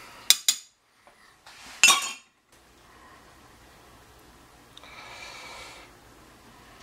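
Metal fork clinking against a slow cooker's crock: two light clicks, then a louder ringing clink about two seconds in. A soft rustle follows around five seconds.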